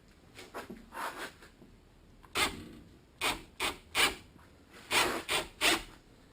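Electrical cable being pulled through a wire stripper, its blade slicing the plastic insulation in a run of short, uneven scraping strokes that grow louder from about two seconds in.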